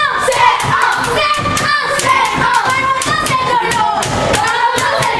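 A group of boys chanting and singing together in unison, keeping time with rhythmic hand claps and thumps, about three beats a second.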